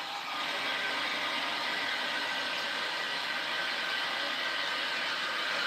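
Water from a kitchen tap running steadily into a pot.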